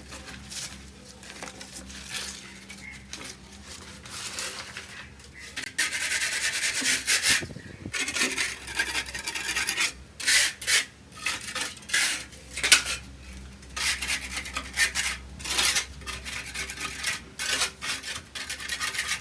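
Hand scraping or abrading strokes against a fan stand, in irregular rasping strokes that start quietly and grow louder about six seconds in, with some metallic clatter.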